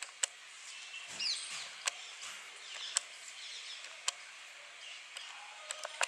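Black-rumped flameback woodpeckers pecking at food on a ledge: sharp single taps roughly once a second, with a quick cluster of taps near the end. A short chirp comes about a second in, over a steady hiss of background birds and insects.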